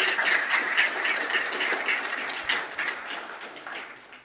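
Audience applauding, the clapping fading away near the end.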